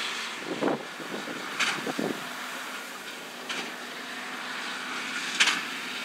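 A John Deere 6250R tractor's six-cylinder diesel running steadily under load as it pulls a Massey Ferguson 2270XD large square baler through straw, with a short sharp stroke from the baler about every two seconds. The loudest stroke comes near the end.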